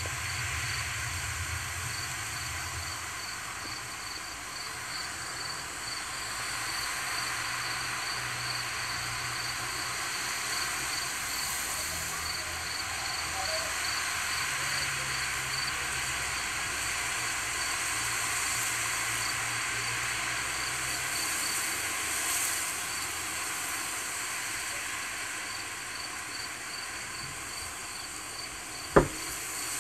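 Wind blowing through grass, a steady rushing hiss, with a cricket chirping in an even pulsed rhythm through the first half. A sharp knock sounds near the end.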